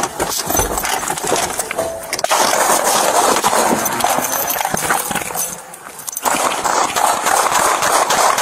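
Gunfire picked up on a police body camera: a burst of rapid sharp cracks among loud rubbing and jostling of the camera as the officer moves. It is loud and dense, with a brief lull about six seconds in.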